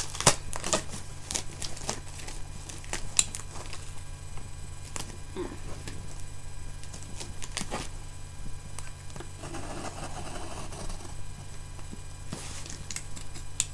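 A cardboard box being cut open along its taped seams with a small pocket knife: irregular sharp clicks and scrapes of the blade against tape and cardboard.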